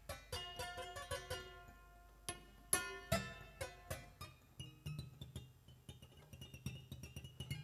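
Prepared grand piano strings plucked and struck directly by hand inside the instrument: an irregular scatter of sharp metallic plucks, each left ringing, with louder strikes a little under three seconds in and just after three seconds.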